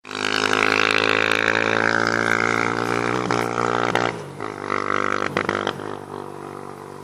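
Four-wheeler (ATV) engine running with a steady, droning note, wavering in pitch a few times in the middle and fading away over the last couple of seconds.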